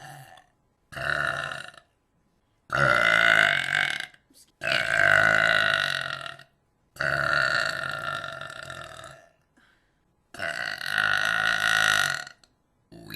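A person burping deliberately, five loud, drawn-out burps in a row with short silences between them: the first brief, the others lasting about one and a half to two seconds each.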